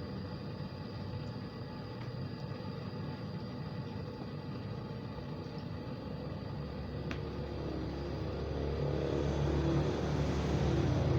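Steady low rumble that swells louder about eight seconds in, with a faint steady whine above it and a single sharp click about seven seconds in.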